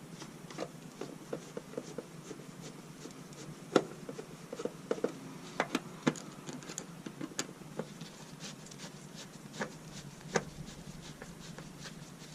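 Screwdriver turning screws to fasten a turn signal assembly back in place: a run of small irregular clicks and scratchy ticks, with a few sharper clicks about four and six seconds in.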